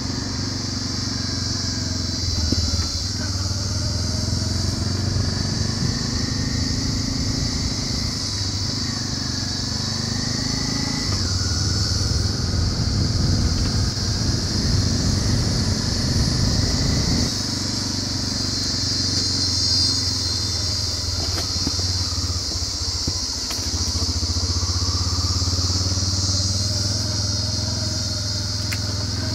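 Motorcycle engine running while riding a bumpy dirt track. The engine note climbs and then drops sharply twice, about a third of the way in and again a little past halfway, as gears change. A steady high hiss sits over it.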